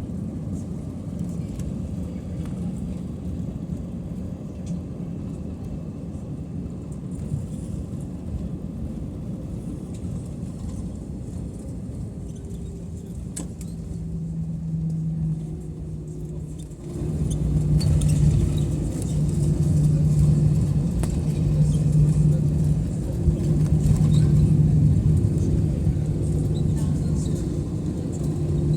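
Low cabin rumble of an Airbus A320 rolling on the ground after landing. A low humming drone comes in about halfway through, then grows louder and pulses from a little past halfway.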